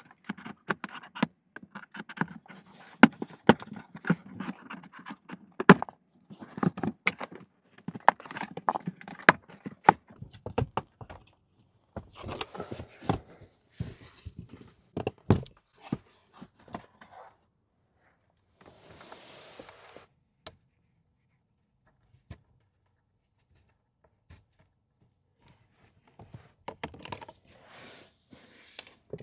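Carpeted footwell trim panel in a Tesla Model Y being pried off with a plastic trim tool: a dense run of sharp clicks, snaps and scrapes from the tool and the panel's clips. A short rustle comes around twenty seconds in, then a quiet stretch, and more handling clicks follow near the end.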